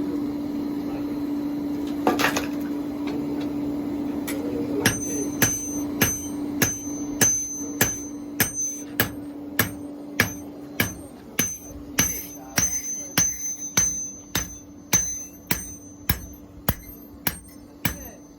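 Hand-forging: a hammer striking metal on an anvil in a steady rhythm of a little under two blows a second, starting about five seconds in, each blow leaving a high metallic ring. A steady hum runs underneath and fades out around the middle.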